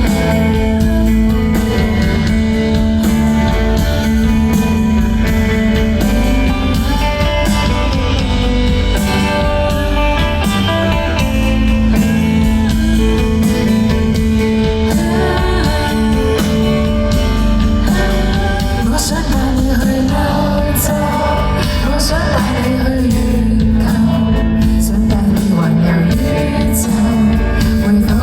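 A live indie pop band playing a song, with a singer's voice over the band's guitar-led backing.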